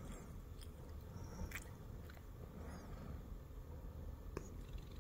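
Siamese cat purring close to the microphone, a steady pulsing low rumble, with a couple of small clicks about one and a half seconds in and near the end.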